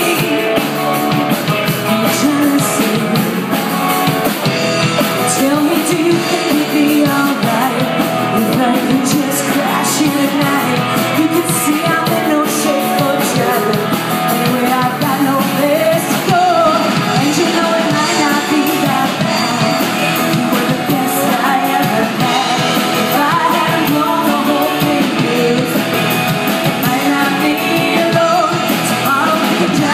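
Rock song played by a full band, with a lead vocal sung over drums and cymbals at a steady, loud level.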